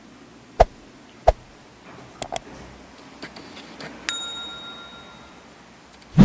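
Several sharp clicks, then a single bell-like ding that rings out for about a second and a half, and a heavier thump at the end.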